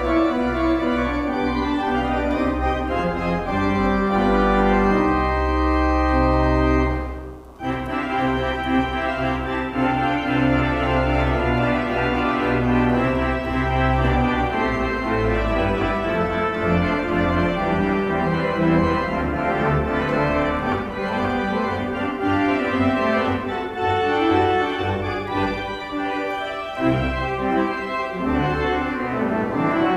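Whalley & Genung tracker pipe organ playing a prelude: sustained chords over deep pedal bass notes, with one short pause about seven seconds in before the music goes on.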